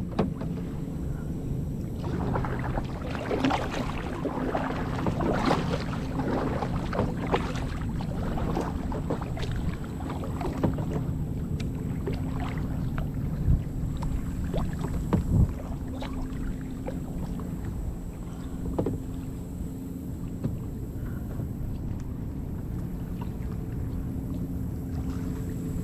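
Water splashing and lapping around a fishing kayak, busiest in the first half, with a couple of sharp knocks on the hull about halfway through, over a steady low hum.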